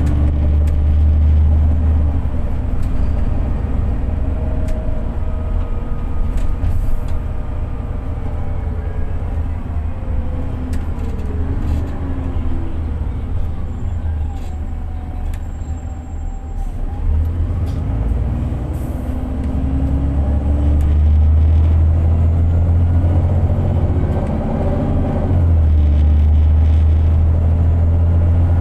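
VDL DB300 bus under way, its diesel engine and Voith four-speed automatic gearbox running with a low rumble that swells and eases. Whines rise and fall in pitch as the bus speeds up and slows, with light clicks and rattles on top. The bus is in limp mode, its engine short of power.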